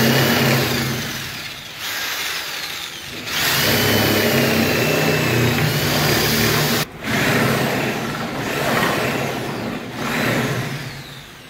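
Corded electric drill boring through wooden window-frame timber with a long homemade bit filed from 8 mm steel rebar. The motor runs in several long stretches, its whine rising and falling as the bit takes the load, with a brief stop about seven seconds in.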